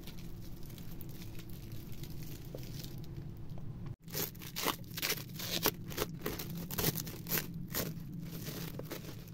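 Plastic cling film being peeled and pulled off a wooden box, crinkling and crackling in quick irregular bursts. The crackling is faint at first and comes thick and fast in the second half.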